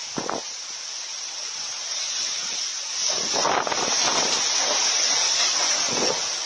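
Storm wind driving heavy rain: a steady rushing hiss that swells with a strong gust about three seconds in and again near the end.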